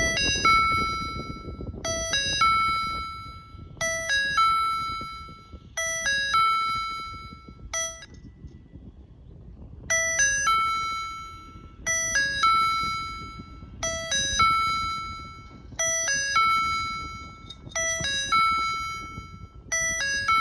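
Railway level-crossing warning signal sounding an unusual electronic doorbell-like chime: a quick run of ringing tones ending on a held, fading note, repeated about every two seconds. One cycle is cut short about eight seconds in, followed by a brief pause before the chime resumes.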